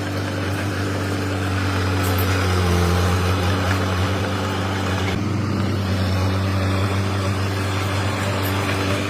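Komatsu D21P mini bulldozer's diesel engine running steadily, its pitch shifting slightly a couple of times as it works.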